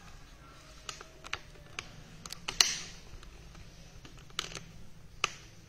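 Light, scattered clicks and taps from hands handling a small piping cone at a tabletop, about nine in all and the sharpest about halfway through.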